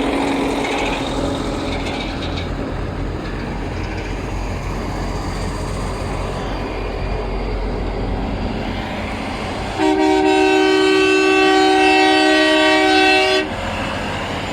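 A vehicle engine running, then about ten seconds in a loud horn with several tones sounds steadily for about three and a half seconds and cuts off.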